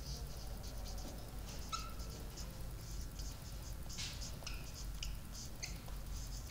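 Whiteboard marker writing on a whiteboard: a run of short scratchy strokes and brief squeaks, over a low steady hum.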